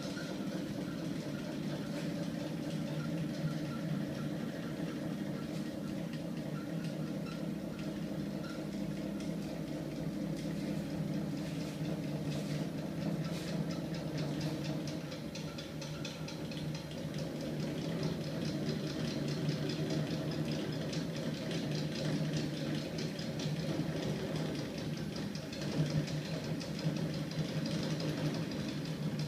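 Homemade magnet-driven crankshaft and flywheel machine, powered by a small 24 V electric motor, running steadily: a low hum with a fast, even mechanical clatter from the spinning crank and moving parts.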